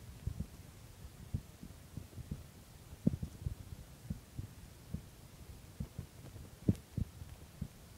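A person's heartbeat: soft, low thumps, several of them in close pairs, over a faint steady hum.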